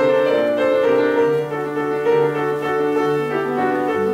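Piano accompaniment playing a slow interlude of held chords and a moving line, with no voice.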